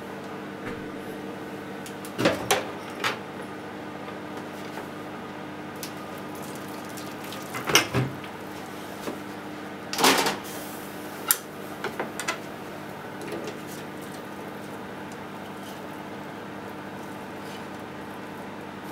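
Scattered knocks and clatters of utensils in a stainless steel sink over a steady low hum, the loudest pair about halfway through, while a block of atsuage tofu is scalded with boiling water.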